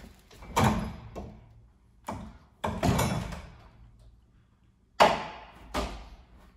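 Knocks and thuds of hands and feet on a steel-framed ninja devil-steps obstacle as a climber swings from grip to grip along it, some with a short low ring from the frame. The loudest knock comes about five seconds in.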